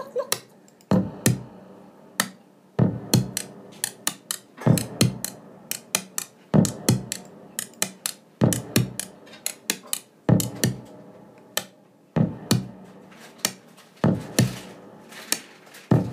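Dance track playing from a vinyl record on a turntable: a drum-machine beat of sharp hits with synthesizer.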